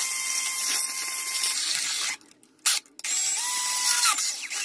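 Cordless drill boring through a metal electrical back box: a motor whine with metal grinding that stops about two seconds in, then starts again a second later with the whine rising as it speeds up.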